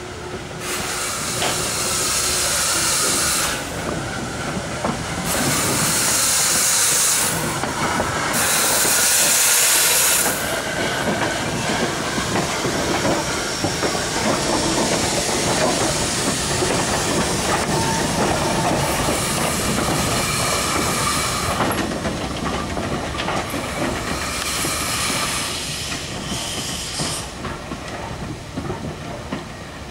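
Steam locomotive moving slowly past at close range. Bursts of steam hiss come and go, each lasting a couple of seconds: three in the first ten seconds and three more later. Underneath them the wheels and rods rumble and clatter on the track.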